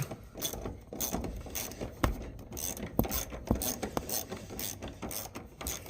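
Ratchet wrench with a T50 Torx bit clicking in short, irregular runs as it backs out a seat-belt anchor bolt that has just broken loose.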